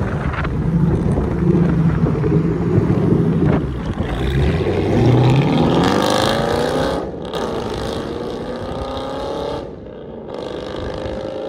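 2010 Dodge Challenger SRT8's 6.1-litre Hemi V8, straight-piped with the X-pipe deleted into quad tips, pulling away and accelerating hard. Its note climbs in pitch through the gears, breaking off briefly about seven seconds in and again near ten seconds, and fades as the car drives off.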